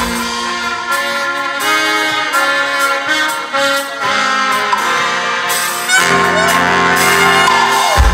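Live brass band of trumpets, trombone and saxophones playing held chords without drums. A low brass note enters about six seconds in, and the kick-drum beat comes back right at the end.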